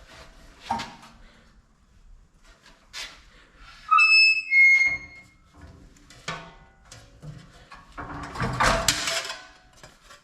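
Hand sheet-metal brake at work on aluminum sheet: scattered clanks and knocks, a short high squeal about four seconds in, and a longer metallic rasp near the end.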